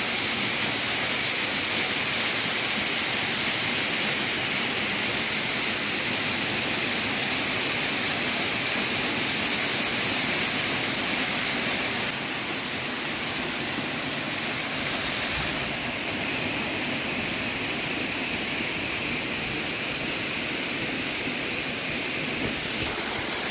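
Tiered waterfall cascading down a series of rock steps: a steady rush of falling water. Its higher hiss shifts slightly about two-thirds of the way through.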